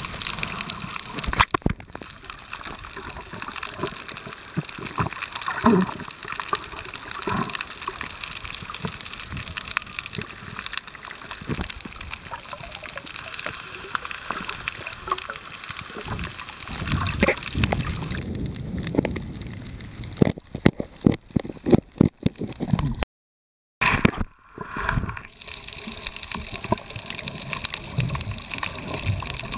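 Water rushing and gurgling around a camera recording underwater, with scattered clicks. A dense run of sharp clicks comes about two-thirds of the way in, and the sound then cuts out completely for about a second.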